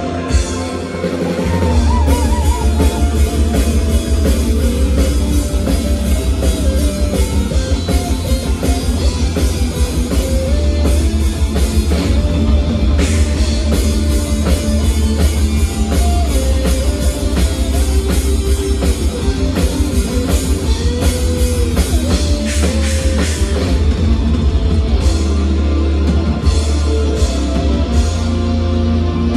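Live symphonic power metal band playing: fast, dense drumming, distorted electric guitars and bass, with a melodic lead line on top.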